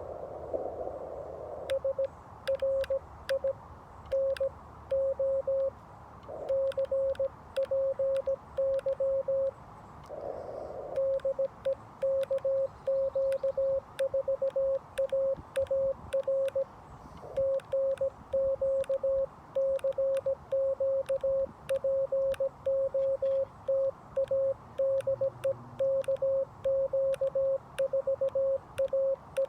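Morse code (CW) from the Xiegu G90 HF radio: one steady tone keyed on and off in dots and dashes, sent at about 17 words per minute, with faint clicks alongside. Short patches of band hiss come through at the start and about ten seconds in.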